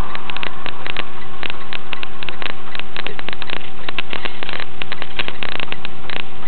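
Dense, irregular crackling and clicking over a steady electrical hum.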